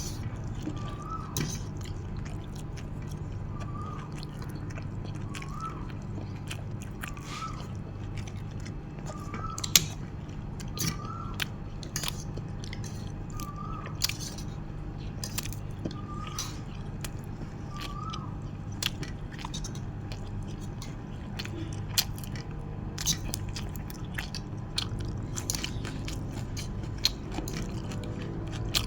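A person chewing and biting into nam tok moo (spicy grilled pork salad) close to the microphone, with scattered short crunches and clicks over a steady low hum.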